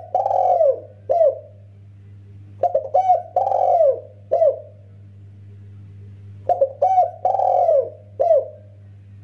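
Spotted dove cooing, repeating its phrase about every four seconds. Each phrase is a few quick short coos, one long drawn-out coo and a short final coo. Under it runs a low steady hum.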